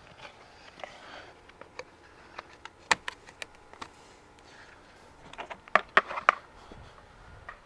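Scattered light clicks and taps of hand tools and parts being handled in a truck's engine bay. The sharpest click comes about three seconds in, and a cluster of louder clicks follows near six seconds.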